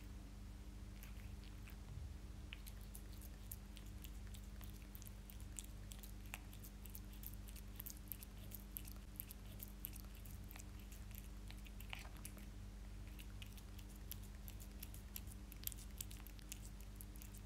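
A cat chewing and biting pieces of fish, a run of small wet clicks and smacks that grows busier in the last few seconds, over a faint steady hum.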